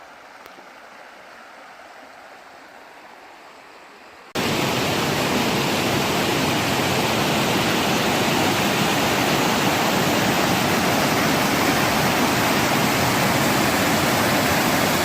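Waterfall, the steady rush of falling water, cutting in suddenly about four seconds in after a faint hiss.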